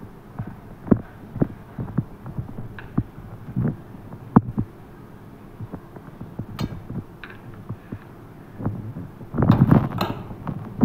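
A steel spoon scooping thick set curd from a plastic tub into a steel bowl: irregular soft knocks and taps of the spoon against the containers, with a denser, louder run of handling sounds near the end.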